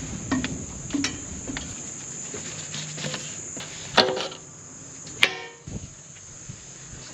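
Steady high chirring of crickets, broken by several sharp metal knocks and one loud metallic clank that rings briefly about five seconds in.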